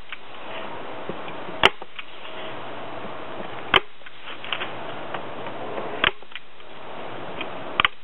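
Hand staple gun driving staples through paneling edging into the collector box's edge: four sharp snaps, about two seconds apart.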